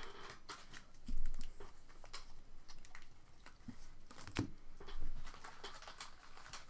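Stiff chrome baseball cards being flipped through by hand, clicking and sliding against one another in scattered light taps, with louder taps about a second in and again a little past four seconds.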